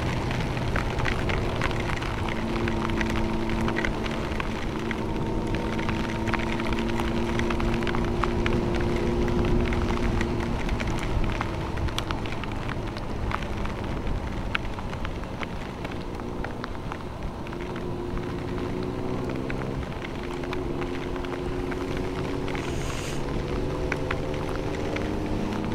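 Motorcycle engine running at a steady cruise in the rain, its note shifting a little in the second half, over a steady hiss of tyres on the wet road and scattered ticks of raindrops.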